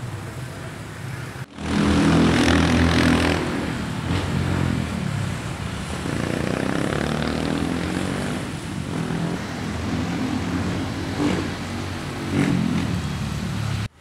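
Street traffic: motor vehicle engines driving past. One passes loudly just after a sudden cut about one and a half seconds in, and others come and go with their pitch rising and falling. Before the cut there is a quieter steady street hum.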